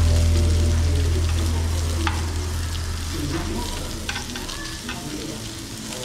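Pork belly sizzling as it grills, a steady crackling hiss with a few sharp clicks. A low drone fades out over the first three seconds.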